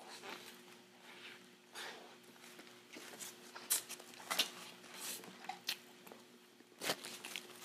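Close-miked chewing of a mouthful of Jollibee Amazing Aloha burger, with a few short sharp mouth clicks and smacks through the middle and once near the end, over a faint steady hum.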